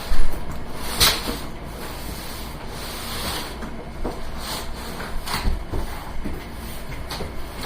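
Cardboard packaging being handled and opened: rubbing and scraping of cardboard with several knocks, the loudest right at the start and another about a second in.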